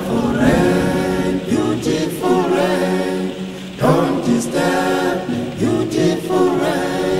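A cappella choir singing in phrases a second or two long, with short breaths between them and a deep low voice part beneath.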